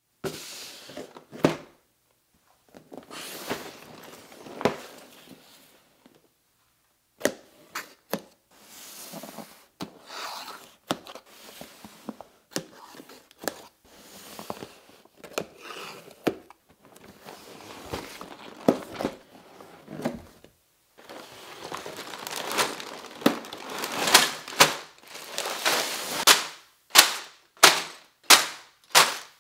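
Cardboard Lego set box being handled and opened, with paper rustling and thunks. Near the end comes a quick series of sharp slaps, about two a second, as the paper parts bags are dropped one by one onto a table.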